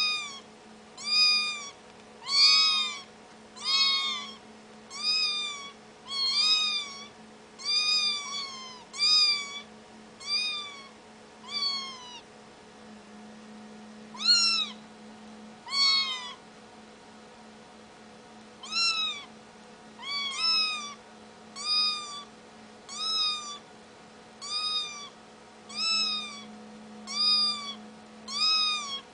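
Kittens meowing over and over: short, high-pitched calls that each rise and then fall in pitch, about one a second, with a couple of brief pauses.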